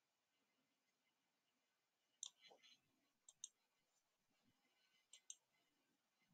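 Faint computer mouse clicks, a handful of them, some in quick pairs, over near-silent room tone.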